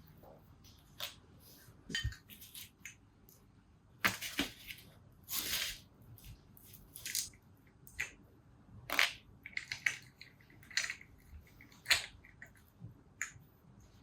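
Small carburettor parts being handled on a workbench: scattered light clicks and taps with a few short rustles.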